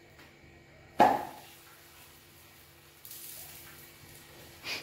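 A rolled aloo paratha slapped down onto a hot griddle over a wood fire: one sharp slap about a second in, then a faint sizzling hiss from about three seconds.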